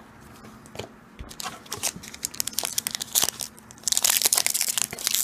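Trading cards being handled, with scattered small clicks, then from about four seconds in a foil Pokémon booster pack wrapper crinkling loudly as it is torn open.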